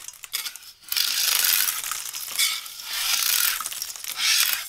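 Thin 3D-printed plastic being handled, crackling and rasping in two long stretches with a short break near the middle.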